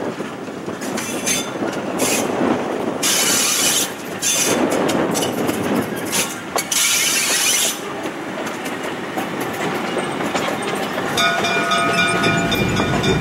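South Shore Railroad 'Little Joe' electric locomotive 803 passing close by on the rails, its wheels clicking over the rail joints. Two loud bursts of hiss come about three and six and a half seconds in, and a steady whine joins near the end.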